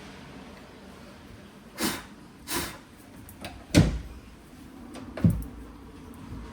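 A window sash and its newly fitted lock being worked by hand: four separate knocks and clunks, the two later ones heavier with a low thud.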